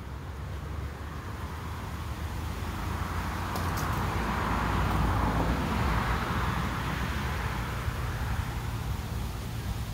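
Road traffic: a steady low rumble, with a rushing noise that builds to a peak about halfway through and fades away, as a vehicle goes by.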